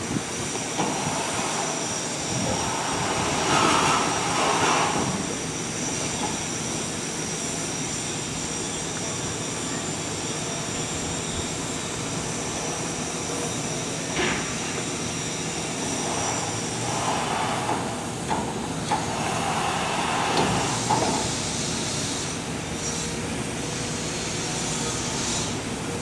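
Durango & Silverton K-36 steam locomotive No. 481 turning on the yard turntable: a steady hiss and machinery noise that swells louder twice, with a single sharp clank about fourteen seconds in.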